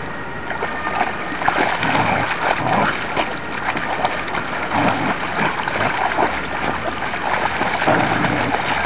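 Two dogs wading and running through shallow river water as they play, legs kicking up irregular, continual splashes.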